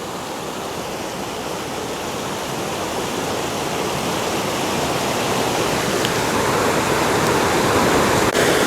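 Creek water rushing and cascading over boulders, a steady rush that grows gradually louder.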